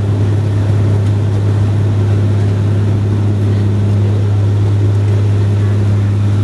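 Bombardier Q400 Dash 8 turboprop taking off, its propellers and engines giving a loud, steady low drone with a constant hum and engine noise over it.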